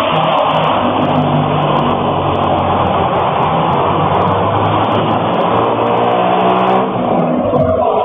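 Motor vehicle engine running steadily and revving, with a rise in pitch near the end.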